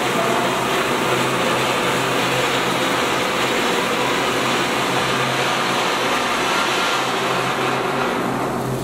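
Cold pyro spark fountain cartridge firing: a steady, loud hiss of sparks spraying upward, thinning out near the end as the fountain burns down.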